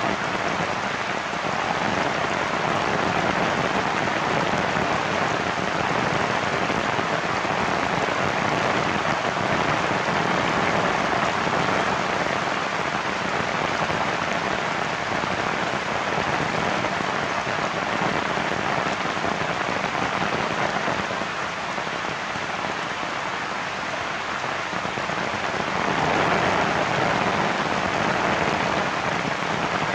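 Heavy rain falling steadily, a dense even hiss of drops that eases slightly about two-thirds of the way through and picks up again near the end.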